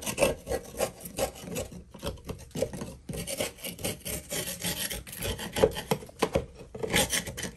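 A long metal tool scraping caked dust and grime off the inside of a rusted sheet-metal bathroom ceiling exhaust fan housing. It goes in rapid, uneven rasping strokes, with a short pause about two seconds in.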